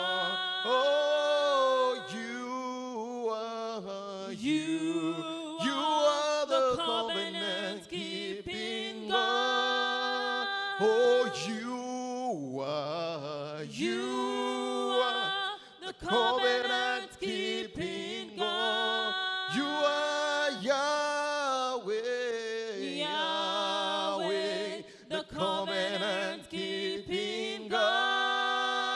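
A man and a woman singing a gospel praise song into microphones, with long held notes, pitch glides and vibrato.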